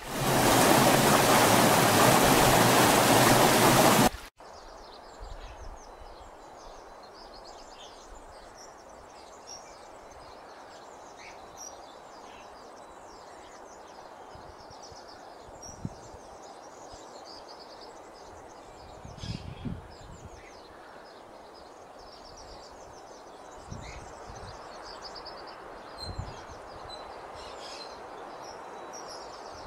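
A rocky mountain stream rushing over stones, loud, cutting off suddenly about four seconds in. Then a much quieter outdoor ambience: a steady soft hiss with many small high chirps and a few brief low thuds.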